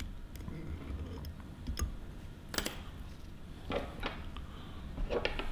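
Scattered small clicks and ticks from a wire whip-finish tool and tying thread being worked at the head of a trout fly, about half a dozen at irregular intervals, the loudest about halfway through.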